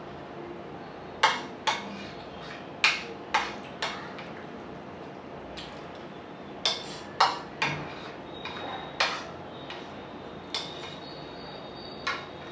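A spoon clinking and scraping against a ceramic plate while scooping up curry and rice: about a dozen sharp clicks at irregular intervals.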